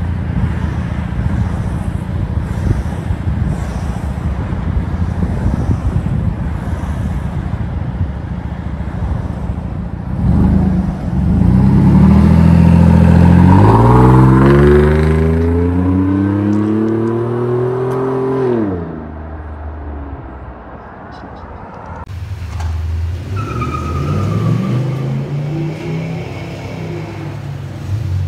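A 2017 Chevy Silverado's 4.3L V6 runs through a custom side-exit exhaust: first a steady, deep idle, then, about ten seconds in, a loud run that rises in pitch as the truck accelerates away and fades out. After that comes a quieter stretch of engine sound.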